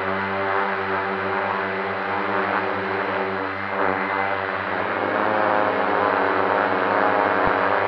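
FPV racing drone's motors and propellers buzzing steadily, the pitch shifting about five seconds in as the throttle changes.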